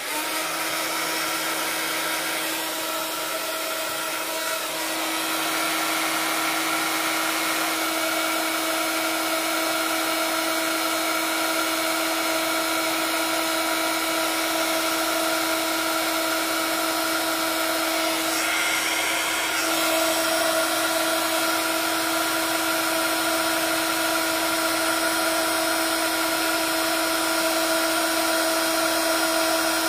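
Craft embossing heat tool blowing without a break: a steady motor whine over a rush of hot air as it melts embossing powder on paper.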